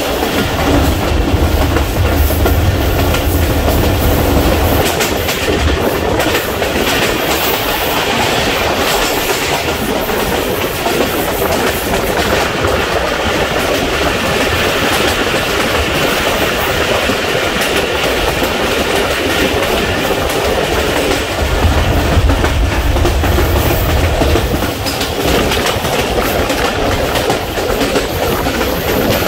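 Moving train with its wheels clattering steadily over the rail joints. A deeper low rumble swells twice, near the start and about two-thirds of the way through.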